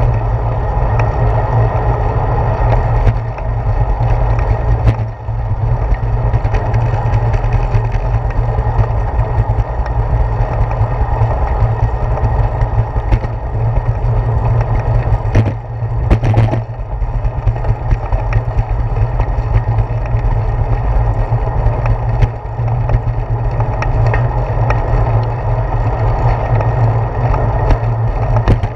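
Bicycle rolling along a concrete path, picked up by a handlebar-mounted GoPro Hero 4: a steady low rumble of riding noise, broken by a few sharp knocks from bumps in the path, several of them together around the middle.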